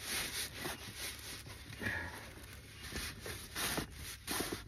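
Foam pipe lagging being handled and pushed onto pipework, with irregular rustling and scraping strokes.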